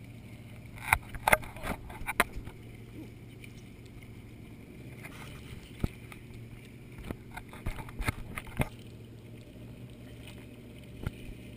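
Motorboat engine running at low speed with a steady low hum. Scattered sharp knocks and bumps come in small clusters, most in the first couple of seconds and around eight seconds in.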